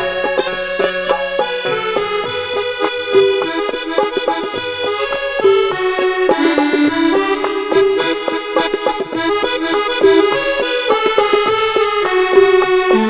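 Instrumental interlude of a Hindi devotional bhajan: a harmonium plays the melody in held notes that shift every second or so, over drum strokes.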